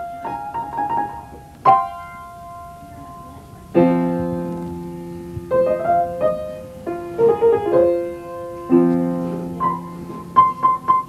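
Slow solo piano music: single melody notes that ring and fade, with fuller chords struck about four seconds in and again near nine seconds.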